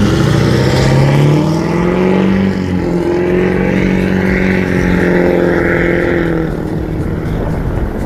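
Car engine accelerating away from a stop, its pitch rising, then dropping and holding steady about two and a half seconds in, as at a gear change. Near the end the engine fades under wind noise on the microphone.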